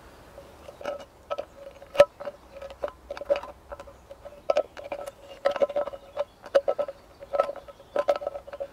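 Rim of a thin steel food can being bent into a pouring spout with pliers: irregular sharp metallic clicks and creaks, with the can ringing in a steady tone between them.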